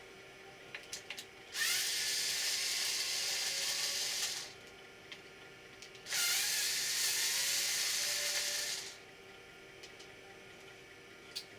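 Cordless power screwdriver or drill running in two spells of about three seconds each, speeding up at the start of each, as screws are driven out to get at the hard drive.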